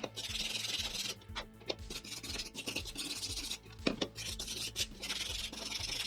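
Wire brush scrubbing over a 3D-printed PLA part in several long scratchy runs, clearing off the fine stringing wisps left by printing.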